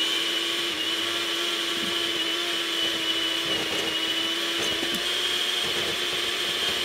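Electric hand mixer running steadily with a constant whine, its beaters creaming butter, sugar, molasses and egg in a glass bowl.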